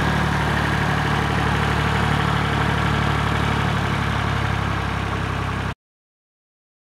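Massey Ferguson 135 tractor engine running steadily as the tractor drives along carrying hay bales on its rear pallet forks. The sound cuts off abruptly near the end.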